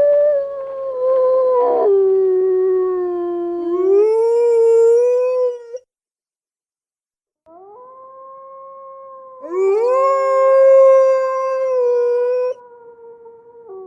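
Wolves howling. First one long howl that dips in pitch and then rises again before it stops, then a short pause. Then a howl joined by a second rising howl that overlaps it, both trailing off lower near the end.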